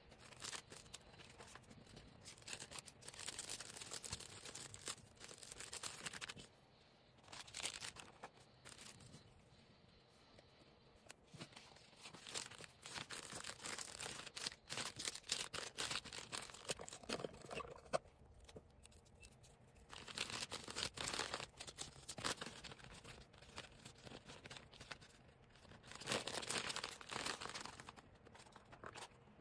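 Plastic packaging handled while an order is packed: rustling and tearing in stretches of a few seconds with quieter gaps between, dotted with small clicks.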